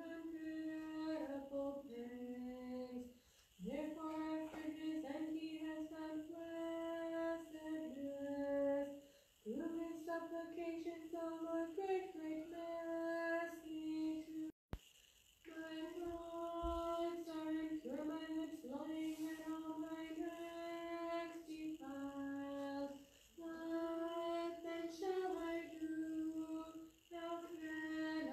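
A woman chanting an Orthodox Vespers hymn unaccompanied, holding long notes within a narrow range of pitch, in phrases broken by short breaths. The sound cuts out for an instant about halfway through.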